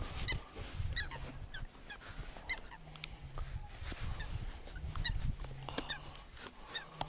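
Birds calling over and over in short, falling calls, over a low rumble.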